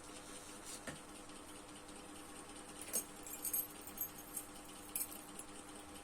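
Scattered light clicks and rattles of small hard objects being handled, with a quick cluster about three seconds in, over a faint steady hum.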